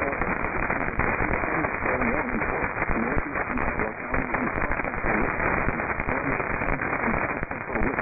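AM broadcast signal on 970 kHz received through a web-based shortwave receiver: dense static hiss full of crackles, with a faint voice buried beneath it.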